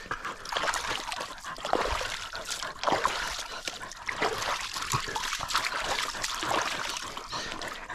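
Irregular splashing and trickling of shallow water at a water hole, with sounds from a dog mixed in.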